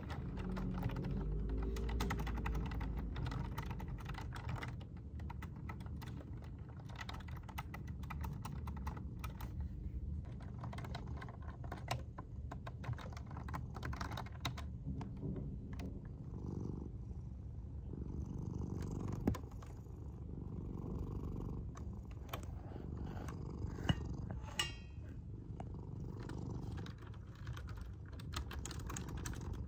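Domestic cat purring as a steady low rumble, under the clicking of keys typed on a computer keyboard; the typing is quick and dense in the first half and thins out later, with a couple of louder clicks.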